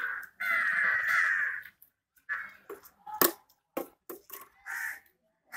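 Crows cawing: one long, harsh caw about half a second in, then several shorter calls. A sharp click a little after the middle is the loudest moment.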